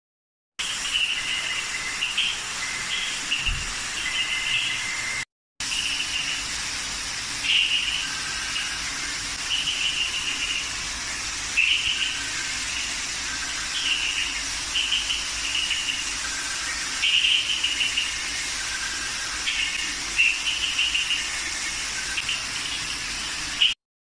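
Frogs calling: short repeated calls at a few different pitches, roughly one a second, over a steady hiss. The sound drops out briefly about five seconds in.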